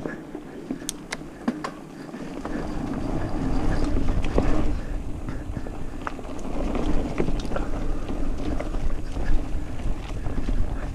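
Mountain bike riding along dirt singletrack: tyres rolling over dirt and leaf litter, with a low rumble of wind on the microphone that grows louder about two seconds in, and scattered sharp clicks and knocks from the bike.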